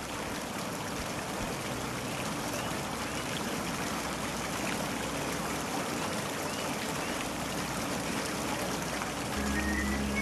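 A steady rushing, water-like noise, with a few sustained synthesizer notes starting near the end, stepping from one pitch to another, played on a Roland XP-30 keyboard.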